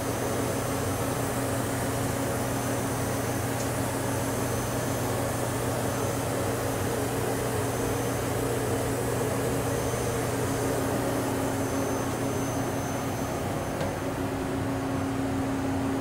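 1989 Hurco BMC-20 CNC vertical machining center running its built-in warm-up cycle: a steady machine hum with a low constant tone from the spindle and ball-screw axis drives.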